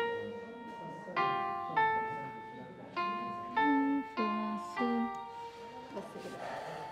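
MuseScore notation software playing back piano notes one at a time: about seven separate notes at uneven intervals, each fading away. The notes are being sounded to find a wrong note in the score.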